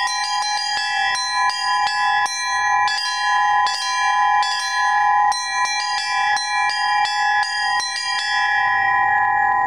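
Small church bells in a Russian-style peal, struck in a quick rhythmic pattern over a steady ringing tone. The strikes stop about eight seconds in and the bells are left to ring out.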